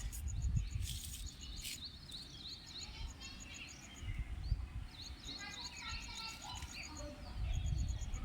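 Birds calling and singing: repeated short chirps, bursts of chattering, and a fast, even run of high pulses, over a low rumble.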